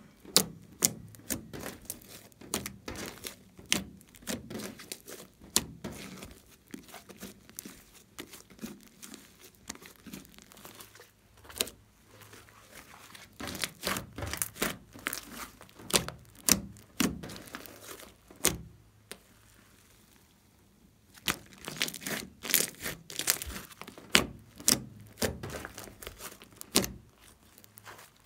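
Thick glossy slime being kneaded, squeezed, poked and stretched by hand: sticky squelching broken by many irregular sharp pops and crackling clicks. There is a short pause of about two seconds a little past the middle.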